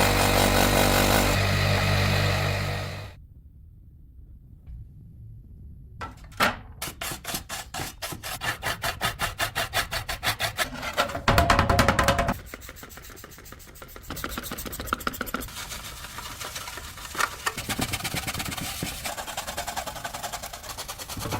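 A loud steady sound with a low hum at first, cut off after about three seconds. After a short quiet gap comes repeated hand rubbing, about three strokes a second, then a brief louder stretch of noise and softer, irregular rubbing strokes.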